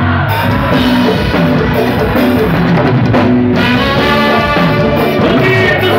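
Band dance music played loud over a sound system, with a drum kit keeping a steady beat under a moving bass line and melody.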